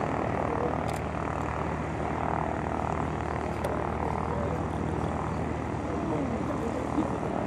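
Airbus A400M Atlas's four TP400-D6 turboprop engines running in flight, a steady propeller drone with a low, even hum beneath it.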